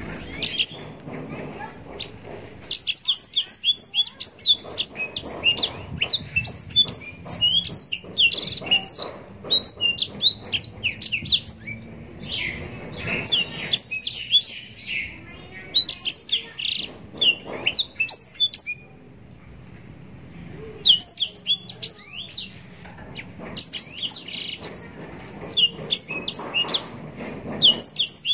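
Blackthroat (black-throated canary) singing long, fast phrases of high, quick sweeping notes, broken by short pauses, the longest about two-thirds of the way through.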